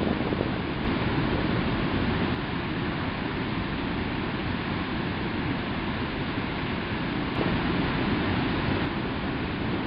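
Fast-flowing river water rushing steadily, an even noise with no bird calls standing out.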